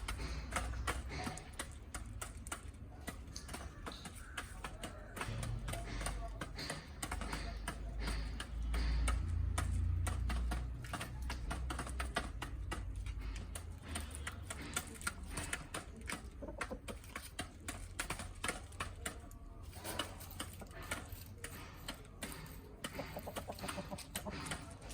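Backyard chickens clucking and pecking at feed, a rapid, irregular clicking, over background music and a low rumble that swells about a third of the way in.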